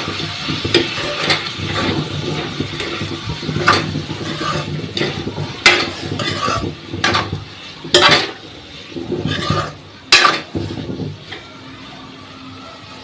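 Metal spatula stirring and scraping diced potatoes and chopped tomatoes in a metal kadai, striking the pan in sharp clanks every couple of seconds. The stirring stops about two seconds before the end.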